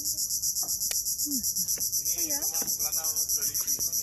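Insects chirring in a loud, high-pitched, evenly pulsing chorus, about five or six pulses a second.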